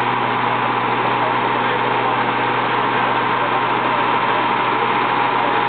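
Steady running noise in a dyno bay: a large floor fan blowing at the car's nose and a car engine idling, with no revving. Voices talk underneath.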